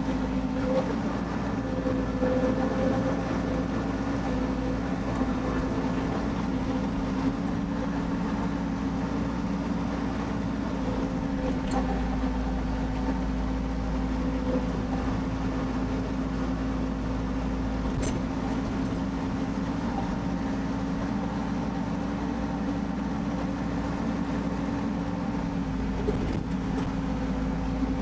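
Rippa R32 mini excavator running steadily while digging a trench, its small diesel engine and hydraulics making a constant hum, with a couple of faint ticks.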